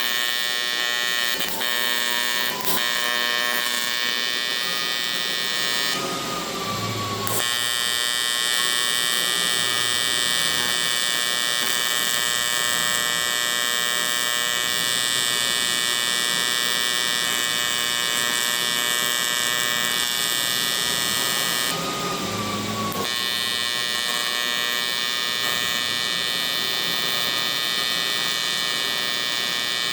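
AC TIG welding arc on aluminum: a steady, loud electric buzz, laid on as he welds the frame stock. The buzz drops out briefly twice, about six seconds in and again about twenty-two seconds in.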